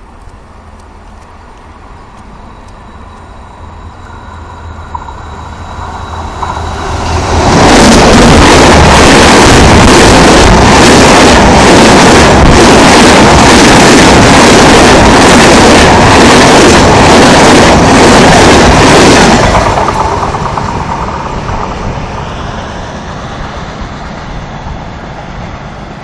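Express train hauled by a WAP-7 electric locomotive passing close at high speed. A rumble builds as it approaches, then comes about twelve seconds of loud rushing noise with a rhythmic clatter of wheels over rail joints as the double-decker coaches go by. The sound fades as the train recedes.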